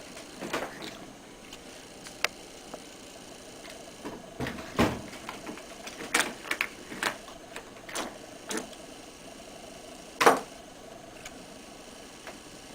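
Hand-handling of a car battery and its push-on terminal connectors: scattered sharp clicks and knocks at irregular intervals, with heavier thumps about five seconds in and again about ten seconds in.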